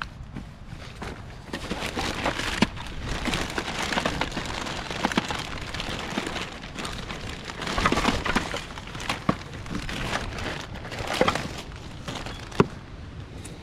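Rummaging through a pile of discarded electrical cords and junk: constant rustling and clattering of plastic and cable, with a few sharp knocks, the loudest near the end.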